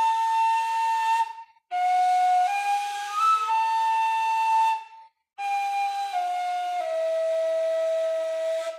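Solo kurai, the Bashkir reed end-blown flute, playing a slow folk melody in breathy, airy tone. Three phrases, each stepping between a few notes and settling on a long held note, with short breath pauses about a second and a half in and about five seconds in; the last phrase steps down to a long low note that ends just before the close.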